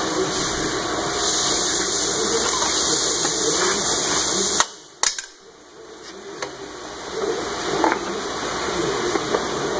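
A steady rushing roar that cuts off abruptly about halfway through, with two sharp clicks. A quieter hiss then slowly builds back up.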